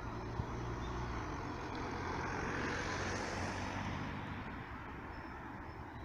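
Tour coaches' diesel engines running low, with a vehicle driving past close by: its rushing noise swells to a peak about three seconds in, then fades.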